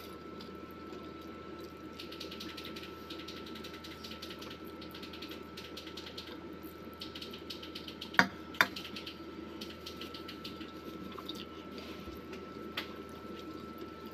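A person eating instant ramen noodles: soft, wet chewing and slurping with fine rapid clicks, and two sharp clicks a little after eight seconds in. A steady faint high tone runs underneath.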